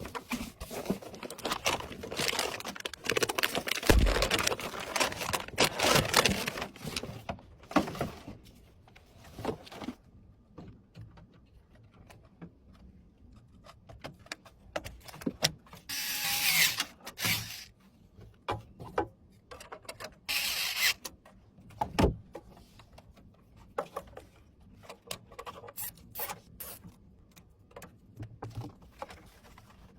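Handling noises of PC parts being assembled: irregular clicks, knocks and scrapes of hardware and tools, with a heavy thump about four seconds in and two longer hissing scrapes around the middle.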